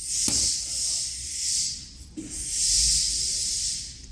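Air hissing from a positive and negative pressure tester during a control valve leakage test on a Delphi F2E injector: two long hisses, each about a second and a half, with a short break about two seconds in.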